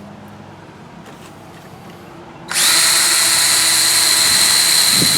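A high-speed power tool switches on about two and a half seconds in and runs steadily with a high whine, scouring corrosion off a truck's battery terminal connection.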